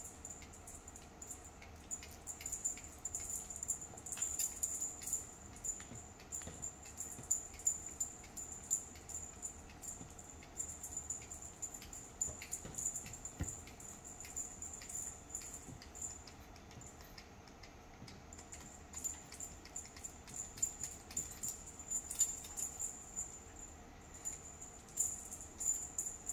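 Cat feather wand toy being swished about, its line and lure giving quick, light ticks and rustles in irregular flurries over a faint steady high whine.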